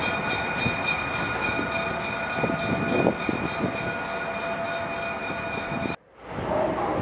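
Sperry Rail Service rail-inspection car running along the track: a steady high whine of several tones over a rumbling haze, with a few knocks from the wheels about halfway through. About six seconds in, the sound cuts off abruptly and then fades back in as the car is heard again.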